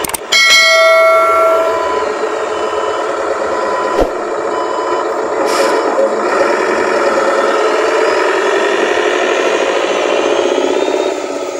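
A metallic clang that rings for about a second just after the start, then a remote-control model truck running with a steady mechanical whir.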